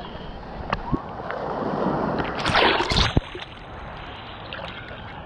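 Ocean water sloshing and splashing around a camera held at the surface in choppy surf, with a louder splashing rush of a wave about two and a half seconds in that cuts off sharply.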